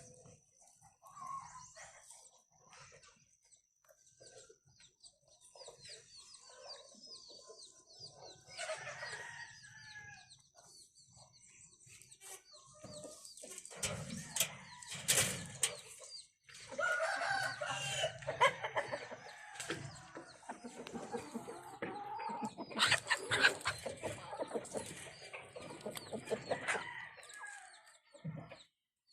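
Chickens clucking, with a rooster crowing; the calls are sparse at first and grow busy and dense about halfway through.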